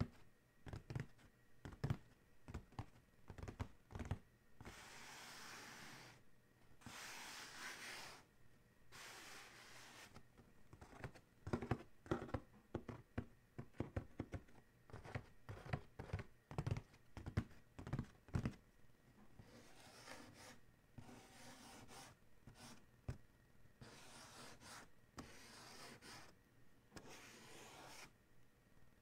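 Fingertips tapping and fingernails scratching and tracing on the lid of a cardboard Adidas shoe box. Runs of quick, light taps alternate with stretches of soft scratching: taps at the start and again in the middle, scratching between them and through the last part.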